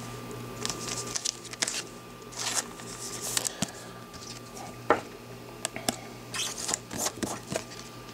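Trading cards and plastic card holders being handled on a table: short rustles and sliding, with a scattering of light plastic clicks and taps.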